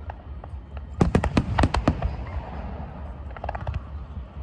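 Aerial fireworks bursting: a rapid run of sharp bangs about a second in, then a fainter cluster of crackles a little later.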